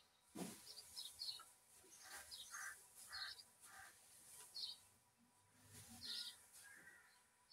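Faint, repeated chirps of small birds, with soft swishes and rustling of dry straw being tossed with a pitchfork.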